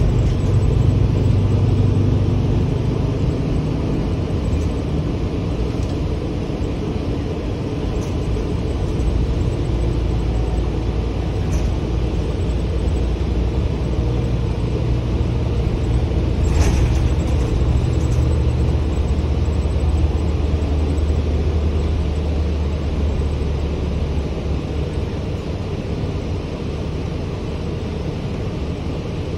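Gillig Advantage transit bus running on the road, heard from inside the passenger cabin: a steady low rumble of engine and road noise whose engine note shifts as the bus drives on. A few light clicks and one sharper rattle come a little past halfway.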